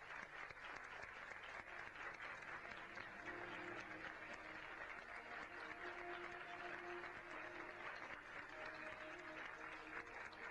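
Faint, steady audience applause that keeps on without a break.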